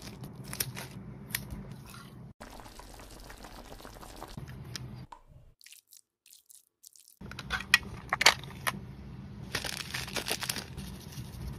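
Close-up crafting sounds: clear plastic crinkling and crunching as it is handled, a short hush in the middle, then a small plastic bag of glitter crinkling between the fingers with sharp crackles.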